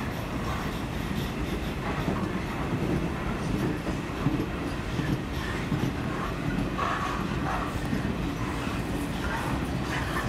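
Empty flat wagons of a freight train rolling past at speed, a steady rolling noise of steel wheels on rail with irregular clattering knocks.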